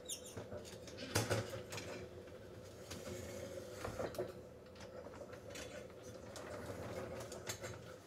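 Coated-wire dishwasher rack and its plastic rollers clicking and rattling as the upper rack is fitted onto its rails, a few separate knocks over a steady low hum.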